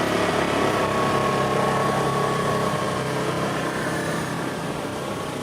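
A motor engine running steadily at an even pitch, slowly getting a little quieter.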